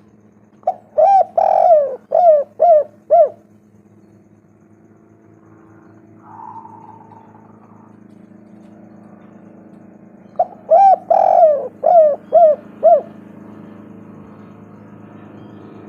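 Spotted dove cooing: two song phrases about ten seconds apart, each a quick run of short coos with one longer, rolled coo near the start.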